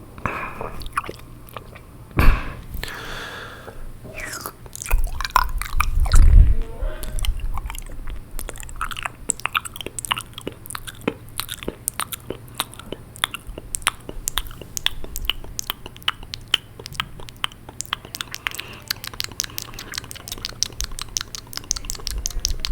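Close-miked wet mouth sounds: quick tongue clicks and lip smacks, coming thick and fast through the second half, with a few louder low thuds in the first few seconds.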